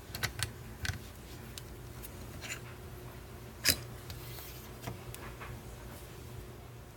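Scattered small metallic clicks and taps from handling a Schlage padlock and lock-picking tools, with one sharper click a little over three and a half seconds in.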